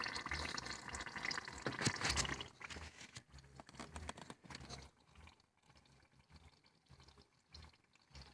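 Smoke machine for vacuum-leak testing bubbling and hissing as its oil heats into smoke, with small crackles. The sound fades within the first few seconds and gives way to near silence.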